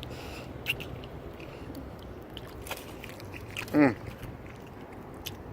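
A person biting into and chewing a baked barbecue chicken wing, with scattered small wet mouth clicks. A short hummed vocal sound with falling pitch, the loudest sound here, comes nearly four seconds in.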